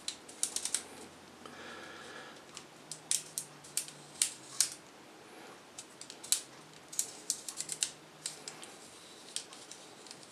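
Aperture ring of a Vivitar 200mm telephoto lens being turned back and forth, clicking through its stops in irregular runs of small, sharp clicks.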